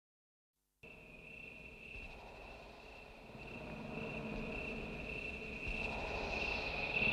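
A faint, steady high-pitched whine starts about a second in, joined by hiss and a low hum that slowly grow louder: the sound effect of an old film-leader countdown intro.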